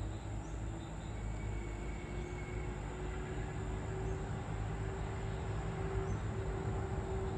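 Evening outdoor ambience: insects trilling steadily at a high pitch over a low rumble and a steady engine-like drone that grows slightly louder from about two seconds in.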